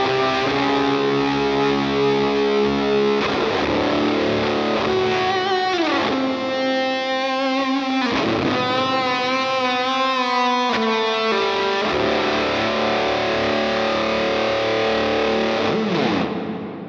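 Electric guitar played through a Tone Bender MkI-style fuzz pedal: long sustained fuzzy chords and notes, with pitch slides and wavering vibrato in the middle, fading out near the end.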